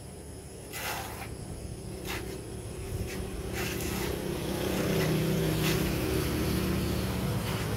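A motor vehicle's engine running steadily, growing louder over several seconds, with a few short scraping strokes on top.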